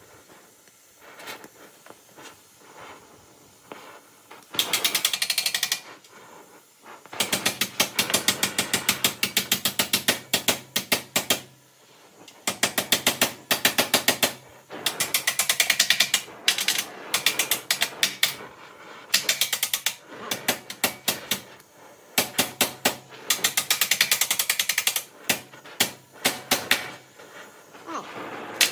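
Oxy-acetylene torch flame on a steel bar popping in rapid machine-gun bursts, each one to four seconds long and starting and stopping about ten times, with a softer hiss of the flame between bursts. Such popping is typical of too little gas flow, and the oxygen tank is running low.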